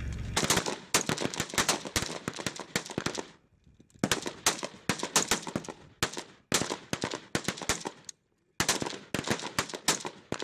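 Several rifles firing at once on a range: rapid, overlapping sharp shots in clusters, broken by brief pauses.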